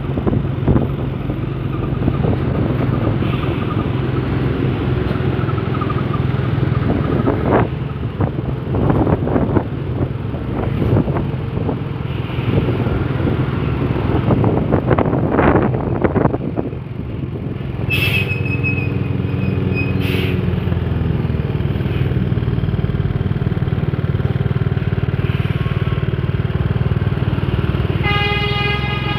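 Road traffic on a winding road: a heavy truck's engine running steadily while vehicles pass with louder surges midway, and two short sharp sounds about two seconds apart. Near the end a truck's multi-tone telolet horn starts playing a tune.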